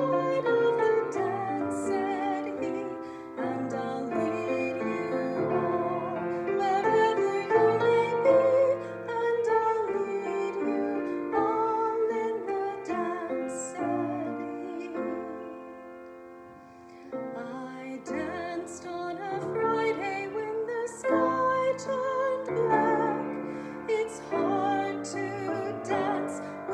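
A woman singing a hymn in a trained, vibrato-rich voice to grand piano accompaniment. A little past halfway the voice stops and the piano fades very soft for a couple of seconds, then the singing starts again.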